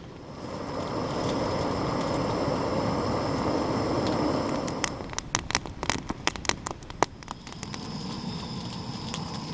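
Jetboil MiniMo canister gas stove burning with a steady rushing hiss. About halfway through, the hiss drops and a quick run of sharp clicks and taps follows.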